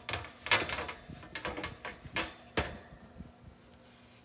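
A round metal baking pan slid into an oven and onto its wire rack: a quick run of metallic scrapes and knocks, loudest about half a second in, dying away after about two and a half seconds.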